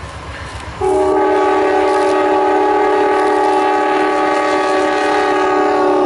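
Amtrak diesel locomotive's air horn sounding one long blast of several tones at once, starting about a second in, over the rumble of the approaching passenger train; the chord drops slightly in pitch near the end as the locomotive passes.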